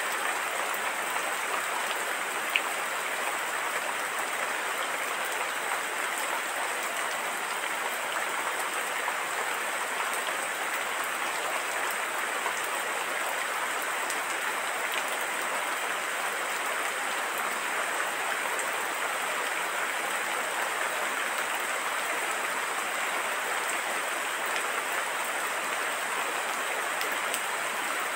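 Steady rain: a dense, even hiss of falling drops with a few single drops ticking out above it, keeping the same level throughout.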